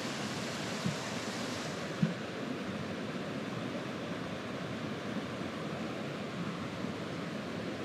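Steady rush of a small cascade in a mountain stream, with a couple of short clicks; the sharpest comes about two seconds in.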